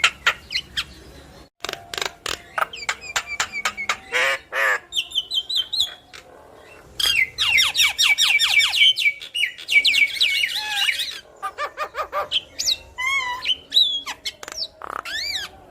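Javan myna singing a loud, varied chatter of clicks, squawks, fast trilled runs and whistled notes.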